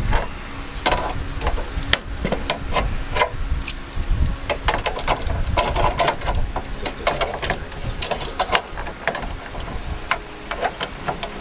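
Irregular clicks, clinks and knocks of hand tools and clamps working car-body sheet metal, several a second, as a bent door-post panel is worked back into shape.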